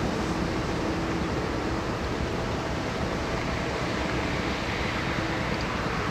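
Steady harbour quayside ambience: an even rumble and hiss with a faint low hum, unchanging throughout.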